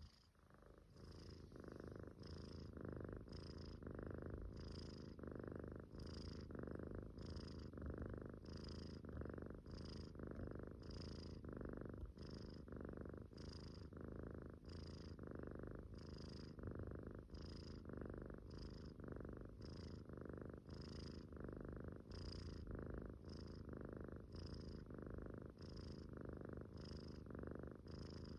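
Munchkin kitten snoring softly in its sleep, an even rhythm of breaths at about one and a half a second, each with a faint hiss.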